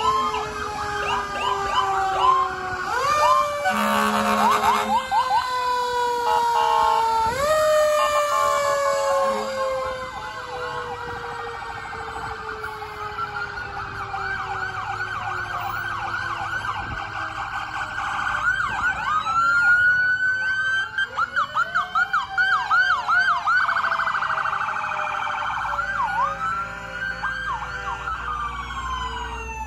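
Several emergency-vehicle sirens sounding at once from passing fire apparatus. Long wails rise and slowly fall, and for a few seconds past the middle a fast yelp cuts in.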